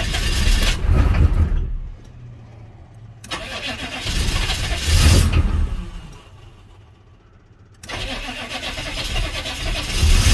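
Starter motor cranking a 1983 Chevy K20's 6.2-litre Detroit Diesel V8 in three tries of a couple of seconds each, with short pauses between, and the engine not catching. It is starting hard because the glow plug button is not being held down.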